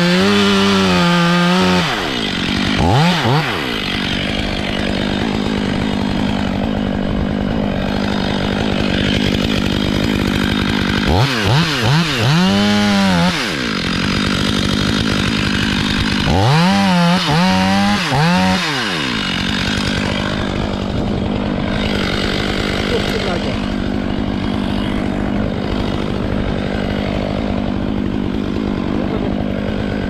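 Stihl top-handle chainsaw running and cutting into a poplar trunk. Its engine note holds steady, then swings up and down in three short spells of a couple of seconds each.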